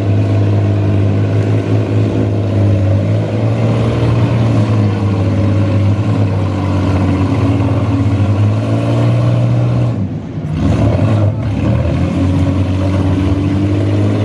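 Minivan engines running hard and revving during a demolition derby heat. The sound dips briefly about ten seconds in, then picks up again.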